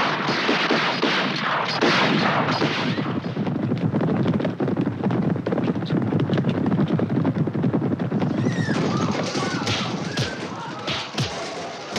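Western gunfight sound effects: dense, rapid gunfire mixed with crashes for most of the stretch, thinning near the end to a few separate sharp shots.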